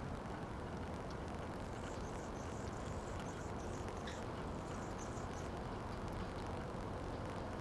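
Steady low rumble of background noise, with faint high chirps over it for a few seconds in the middle.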